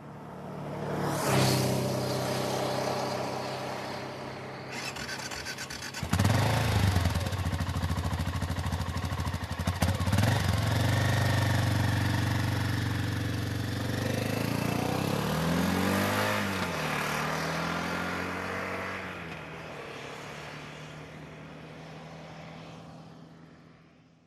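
Motorcycle engine running and pulling away, surging twice early on, then holding speed with its pitch rising and falling, before fading out near the end.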